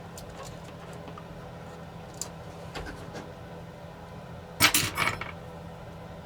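Light clicks and taps of small tools and parts being handled on a repair bench, with a quick cluster of louder clatters about four and a half seconds in, over a low steady electrical hum.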